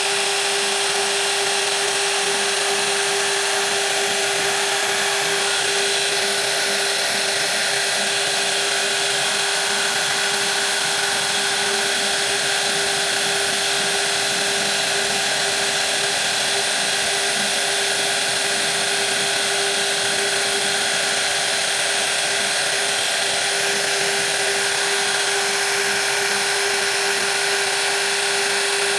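High-speed electric power tool running steadily at a constant pitch, a high whine over a hiss, with no change in speed.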